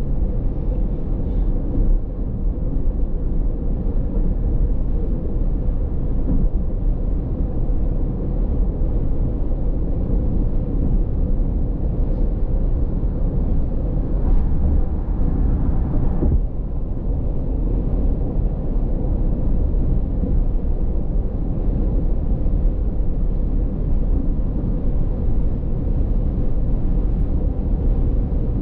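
Steady road and engine noise heard from inside a moving car's cabin, mostly a low rumble. The noise dips slightly about sixteen seconds in.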